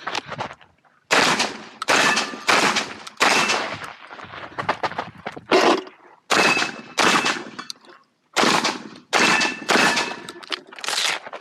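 Shotgun fired in a fast string of about a dozen shots, roughly one every half second to second, starting about a second in, with a short break in the shooting around the middle.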